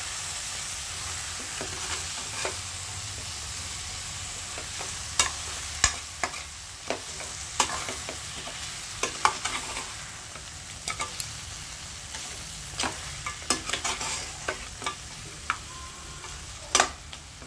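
Crab pieces frying in masala in a kadai, sizzling steadily, while a metal spatula stirs them. Irregular clacks and scrapes of the spatula against the pan and the crab shells come thickest from about five seconds in.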